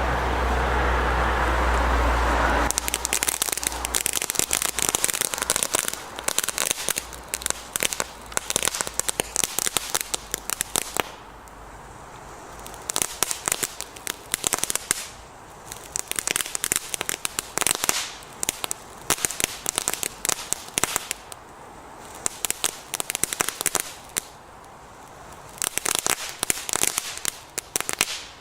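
Scorpion consumer firework going off in a crackling effect: a dense, rapid popping of many small crackles in long waves, with a few short lulls between them. It opens with a steady rushing noise for about two and a half seconds before the crackling starts.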